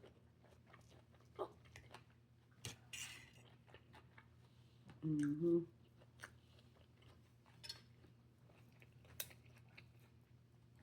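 Close-up mouth sounds of someone chewing and crunching food: small, irregular crunches and clicks, with a brief hummed "mm-hmm" about five seconds in.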